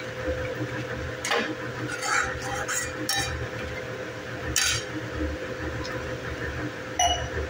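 Metal spoon stirring thick masala gravy in a metal kadhai, scraping and clinking against the pan several times, over a steady low hum.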